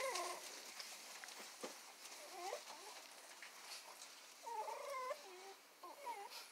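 Pit bull puppies whimpering: four or five short, faint whines that bend up and down in pitch, one longer near the end.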